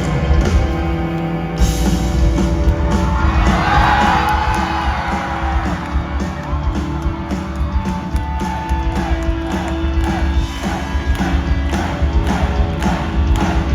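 Rock band music with singing.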